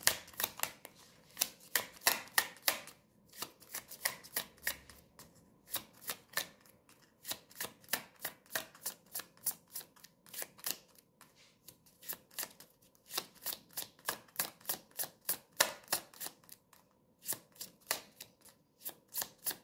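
A deck of tarot cards being shuffled by hand: a steady patter of soft card clicks, about four a second, in runs broken by short pauses.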